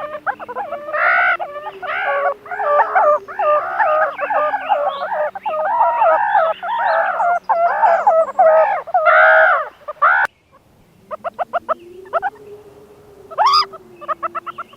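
Meerkats calling: a dense chorus of repeated, arching pitched calls, cut off abruptly about ten seconds in, followed by a quick run of short chirps.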